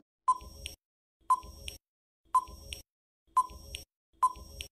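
Countdown timer sound effect: five short beeps, about one a second, counting down the seconds to answer a quiz question.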